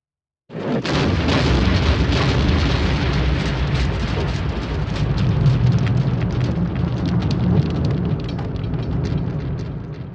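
Long explosion sound effect: a sudden blast about half a second in, then a sustained deep rumble with dense crackling that begins to fade near the end.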